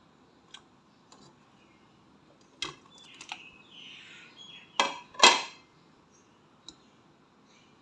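Metal cookware being handled: a few light clicks, then two sharp metallic clinks close together about five seconds in, ringing briefly.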